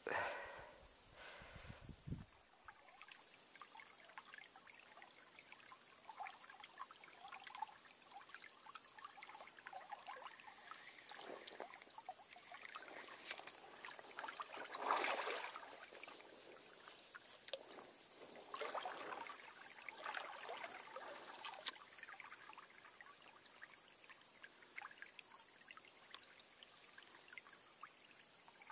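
Faint trickling of water in a small stream, with a few brief louder noises from the angler's movements and handling, the loudest about halfway through.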